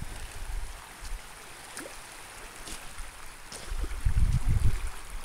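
Shallow sea water lapping and trickling over a pebble shore, with a few faint clicks and a spell of low rumbling bumps about four seconds in.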